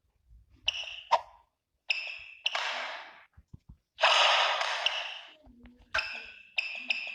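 Badminton play on an indoor court: short high squeaks of sports shoes on the court floor, several times, with a sharp crack of a racket hitting the shuttlecock about a second in, and two stretches of rushing noise about halfway through.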